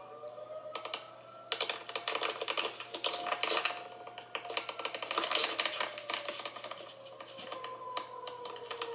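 Tornado warning siren sounding faintly, its pitch slowly drifting, buried under a dense run of rapid sharp clicks and crackles that starts about a second and a half in and dies away near the end.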